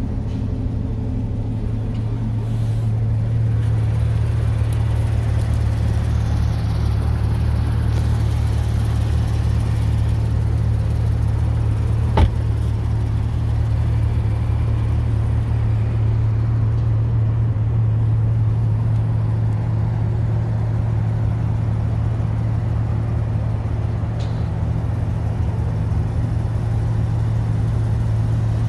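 Porsche 911 GT3 RS's 4.0-litre flat-six with sport exhaust idling steadily, a low even hum. One sharp click about twelve seconds in.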